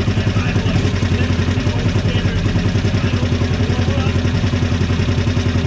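COOT 4x4 utility vehicle's engine running at a steady idle with an even pulsing beat, after a cold start on its freshly rebuilt carburetor.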